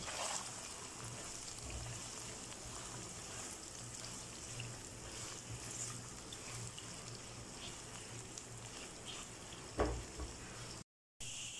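Sliced onions sizzling in hot oil in a non-stick wok, with fine crackling as they are stirred with a silicone spatula. A single knock near the end, and the sound cuts out briefly just after.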